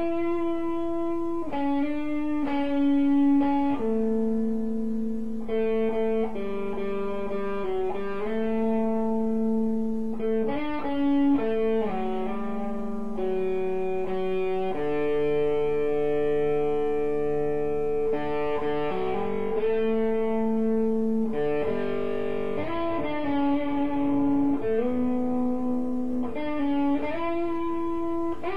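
Red SG-style electric guitar played without accompaniment: a continuous melodic line of notes and chords, many held for a second or more before moving to the next pitch.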